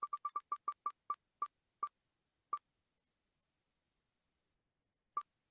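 Online spinner wheel's tick sound effect as the wheel slows to a stop: short, beep-like ticks, about seven a second at first, spacing out steadily until they die away about two and a half seconds in, then one last tick about five seconds in.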